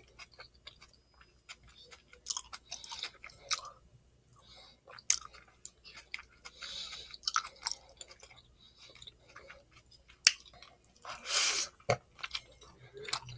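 Chewing a cheesesteak sub, with irregular wet smacks and clicks. Near the end comes a longer, louder burst as a bite is taken from the soft roll.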